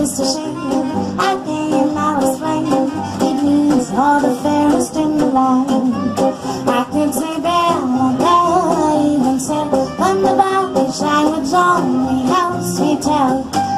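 Music: a melody played over a repeating accompaniment.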